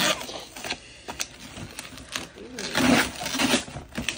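Indistinct voices over scratchy rustling, ripping and clicking of a heavily taped gift box being pulled open.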